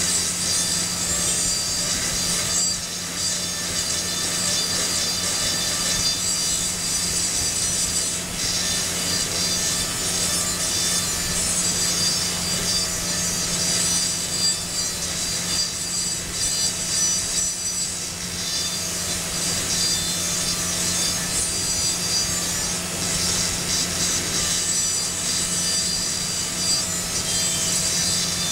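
High-speed dental handpiece running steadily as its straight fissure burr grinds a cavity into the occlusal surface of a typodont molar, giving a high whine over a gritty grinding sound. A constant low hum sits underneath.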